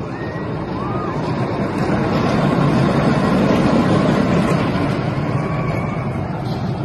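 A small roller coaster's train of cars rolling past on its steel track. The rumble swells to its loudest about three to four seconds in as the cars pass close, then fades as they move away.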